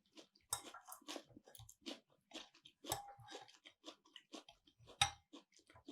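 Close-miked chewing of food: irregular soft crunches and wet mouth clicks, with a louder bite about five seconds in.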